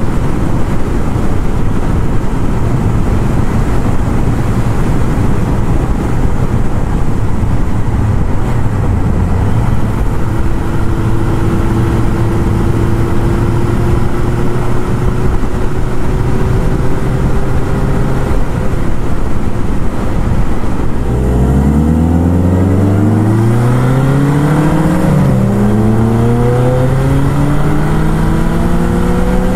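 Motorcycle engine holding a steady speed under heavy wind noise, then accelerating hard from about two-thirds of the way in, its pitch climbing. It drops once for an upshift and climbs again.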